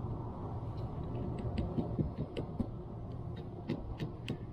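Scattered light clicks and taps from handling a wooden beehive frame and tools, over a steady low hum.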